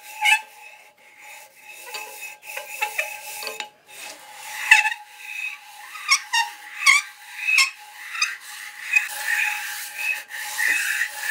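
Split lathe headstock spindle bearing shells rubbed back and forth on 400-grit abrasive paper over a flat plate, a series of gritty scraping strokes that grow louder and quicker from about halfway. The bearing faces are being lapped down so the caps can clamp tighter on the worn spindle and take out the play.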